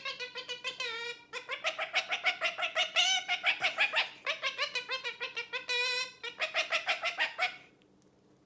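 Pet parrot calling in long, fast strings of repeated pitched notes, several a second. The calls are loud and stop about seven and a half seconds in.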